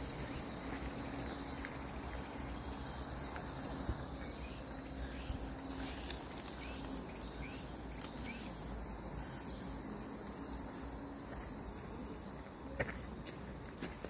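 Insect chorus trilling steadily in summer woodland, with a louder, high, steady trill joining for about three seconds past the middle. A few faint clicks near the end.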